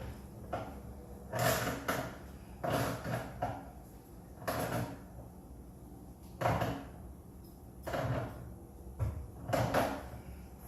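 Plumbing tools and metal fittings being handled while working on a water heater's gas connection: a series of short clunks and scrapes, about one every second or two.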